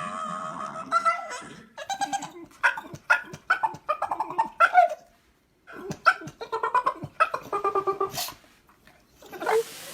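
A dog vocalizing: a held, pitched whining note, then two runs of quick, short pitched calls, about three a second, with a brief pause between them.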